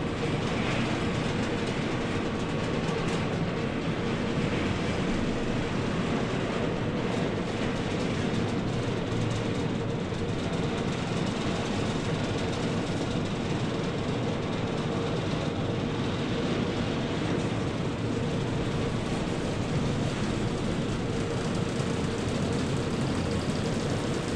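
Peruvian Tunnel's conveyor-belt surface lift (magic carpet) running steadily: a constant rumble with a steady hum.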